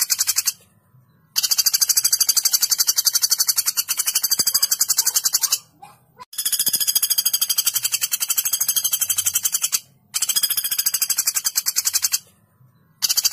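Common flameback woodpecker (pelatuk bawang) giving its long, sharp rattling call, a very fast run of high notes. The rattles come in runs of about two to four seconds, broken by brief pauses.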